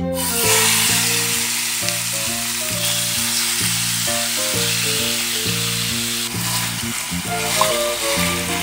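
Chicken thigh pieces sizzling and frying in hot oil in a stainless steel pan. The sizzle starts suddenly as the chicken goes in, and a wooden spoon stirs the pieces. Background music plays under it.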